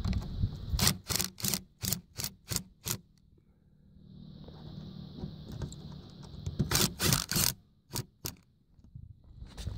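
Cordless drill driving screws into solar-panel mounting brackets: a run of sharp clicks at about three a second, a few seconds of steady whir, then a few more loud clicks.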